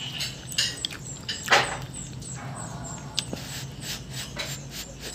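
A person eating ramen noodles close to the microphone: a few short slurps, the strongest about a second and a half in, among many small wet chewing and mouth clicks.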